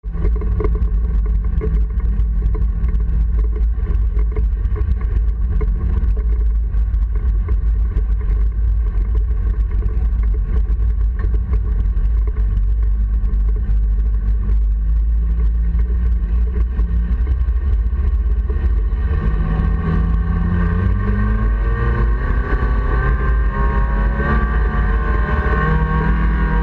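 Honda Civic race car's four-cylinder engine heard from inside the cabin, running steadily at low revs under a heavy low rumble, then revving up with rising pitch from about two-thirds of the way through as the car accelerates.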